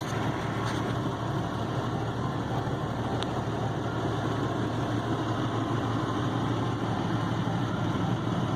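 Heavy truck engine and sawdust spreader running steadily, a low even drone, with one short click about three seconds in.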